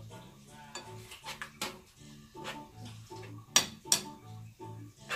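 Metal fork stirring oatmeal in a nonstick frying pan, scraping and clinking against the pan with a string of sharp taps, the loudest about three and a half to four seconds in.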